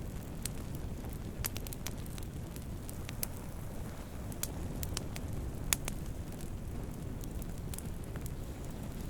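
Campfire of burning wood crackling: a steady low rumble of flames with scattered sharp pops and snaps, the sharpest near the middle.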